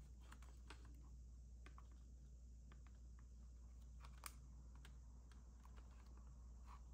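Faint, scattered small plastic clicks and taps as fingers pry a thermostat's LCD panel off the small retaining tabs of its plastic frame, with one sharper click about four seconds in.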